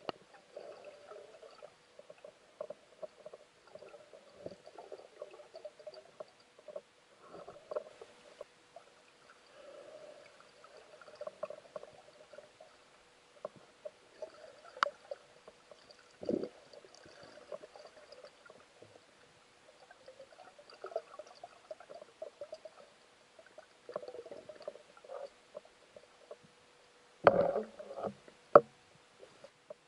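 Underwater sound heard through a speargun-mounted camera's waterproof housing: irregular muffled crackles and rustles of water and gear moving, over a faint steady hum, with a few sharp clicks and two loud knocks near the end.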